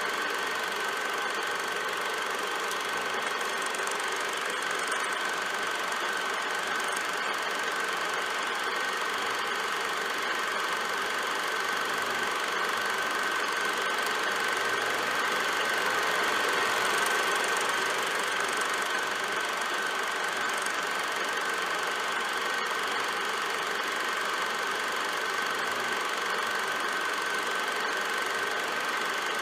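Film projector running steadily, with a constant high whine over its mechanical running noise.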